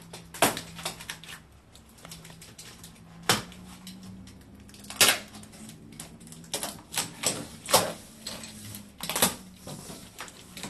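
Box cutter slitting the packing tape on a cardboard shipping box: irregular sharp clicks and short scrapes of the blade through tape and cardboard, a few of them louder.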